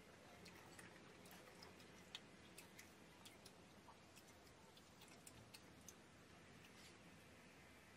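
Faint, scattered small clicks and taps over quiet room tone: a wooden skewer and chopsticks knocking lightly against a ceramic bowl while pieces of spicy fish cake are picked out, the sharpest tap about two seconds in.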